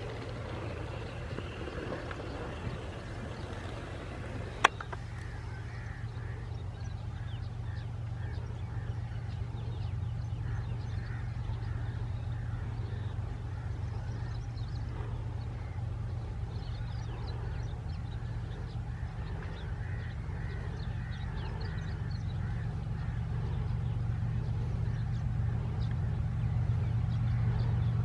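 GEU-40 diesel-electric locomotive hauling a container train on approach, its engine a low steady hum that grows louder toward the end. Birds call throughout, and there is a single sharp click about five seconds in.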